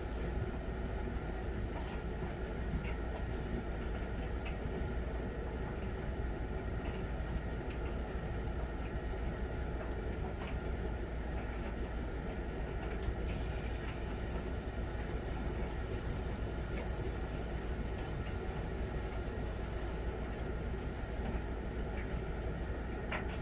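Miele Novotronic W921 front-loading washing machine running early in an easy-care 40°C wash: a steady low rumble and hiss, with a few sharp clicks. A brighter hiss comes in about halfway through and fades again.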